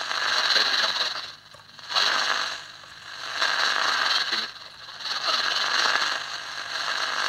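Static hiss and crackle from the speaker of a 2P3 superheterodyne AM medium-wave transistor radio as it is being adjusted. The noise drops away sharply three times, for about half a second each, and swells back.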